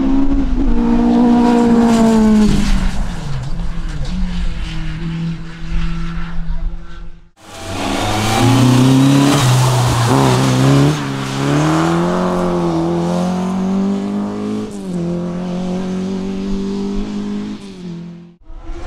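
Racing car engine under hard acceleration, its note falling and climbing as the revs change through the gears. The sound cuts off abruptly about seven seconds in and again near the end as one clip gives way to the next.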